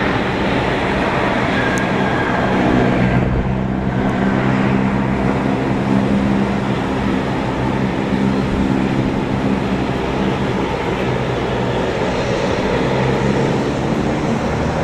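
Airbus A300-622F freighter's Pratt & Whitney PW4158 turbofans running at low power during the landing rollout: a steady low hum over broad jet noise, the hum coming in about two and a half seconds in.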